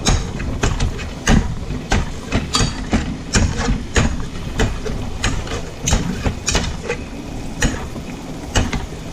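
Wire potato masher repeatedly knocking and scraping against the bottom of a frying pan while mashing olives in oil: a quick, irregular series of clacks, about two to three a second.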